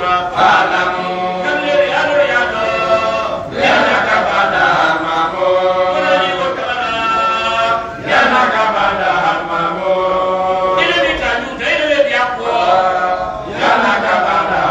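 Men's voices chanting together in an Islamic religious chant, in long held phrases with short breaks for breath about every four to five seconds.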